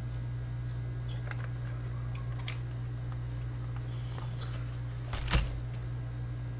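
Small clicks and taps of handling objects on a desk, with one sharper knock about five seconds in, over a steady low hum.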